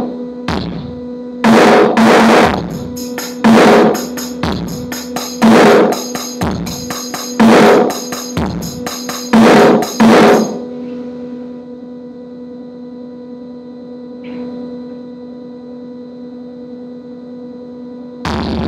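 Electronic noise jam: loud, distorted drum hits in a slow regular pattern, about one every two seconds, over a steady electronic drone from a synthesizer setup. The hits stop about ten seconds in, leaving the drone, and a loud noisy wash comes in near the end.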